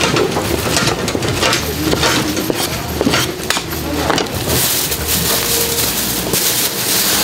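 Thin plastic bag rustling and crinkling as a takeaway tray is bagged, with scattered light clicks and knocks at first and a denser, louder crinkle over the last few seconds.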